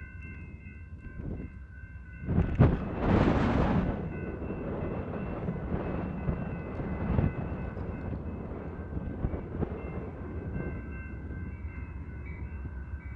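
Amtrak California Zephyr passenger train running with a steady low rumble. A loud rush of noise comes about two and a half seconds in and lasts a second and a half.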